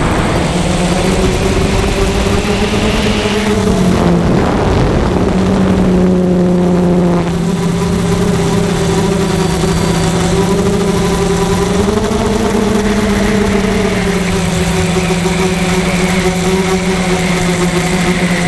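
Electric motors and propellers of a small camera drone humming steadily at a few close pitches, which shift up and down a few times as the throttle changes.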